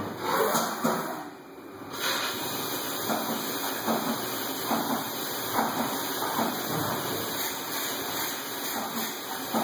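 Haas CNC milling machine cutting a metal plate under flood coolant: a steady gushing spray of coolant over the spinning end mill and workpiece, dipping briefly about a second in.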